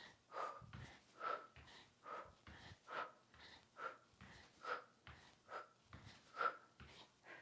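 A woman's hard breathing while exercising, picked up close by a clip-on microphone: short, even breaths about one a second, keeping time with stepping hamstring curls, with faint low bumps between them.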